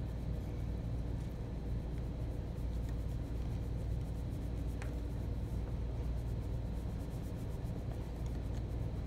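Faint scratching of pastel being rubbed and blended on pastel paper, over a steady low room hum, with one brief click about five seconds in.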